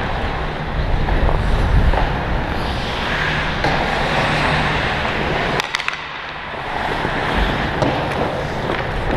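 Hockey skate blades scraping and carving on ice while the skater moves, with wind rushing over the worn camera's microphone. A few sharp clicks come about five and a half seconds in.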